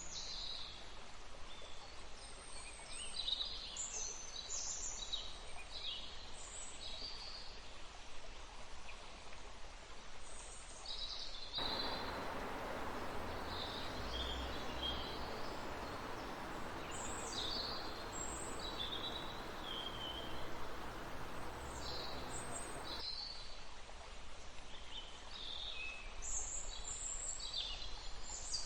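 Many forest birds chirping and calling over the steady rush of a river. About twelve seconds in, the water noise suddenly grows louder and fuller, then drops back just as abruptly about eleven seconds later.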